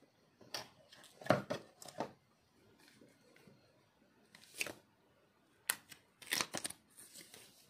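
Handling noise from a smartphone and its retail box and packaging: a scatter of short, irregular rustles, light clicks and scrapes.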